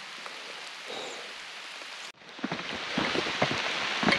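Rain falling, a steady hiss. About two seconds in, the sound cuts out for a moment and comes back louder, with many separate drops striking close by.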